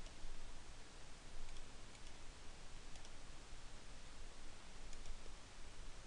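A few faint computer mouse clicks over a steady background hiss.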